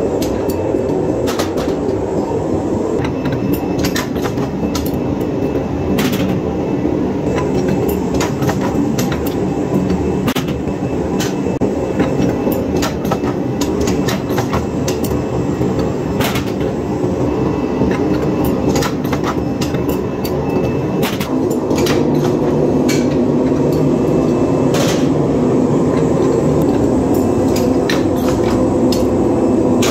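Flywheel-driven mechanical forging press running with a steady rumble, punctuated by irregular sharp metallic knocks as red-hot steel pin blanks are struck in the die and handled with tongs. The rumble grows louder about two-thirds of the way through.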